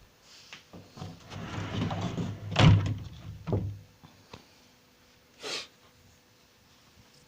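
A rumbling stretch of knocks indoors that builds to a loud thud about two and a half seconds in, with a second thud about a second later, like a door being opened and shut; a short rushing noise follows a couple of seconds after.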